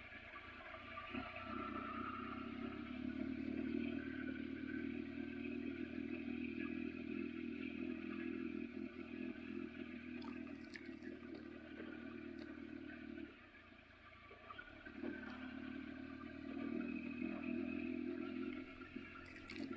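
Triumph Tiger adventure motorcycle's three-cylinder engine running at low revs as the heavy bike crawls down a rough, rocky dirt road, with scattered clatter from stones and the bike. The engine note drops away about 13 seconds in and picks up again a couple of seconds later.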